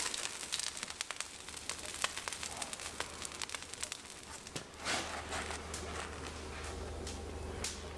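Beef burger patty crackling and sizzling on a hot steel plate over a forge fire, a dense run of fine crackles. A low steady hum comes in about halfway through.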